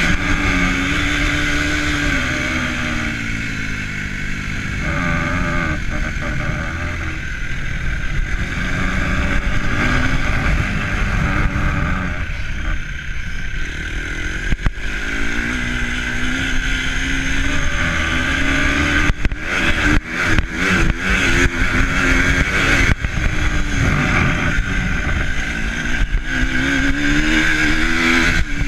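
A vehicle engine running, its pitch rising and falling as the revs change, over a steady rush of wind and road noise. The sound briefly cuts out several times in the second half.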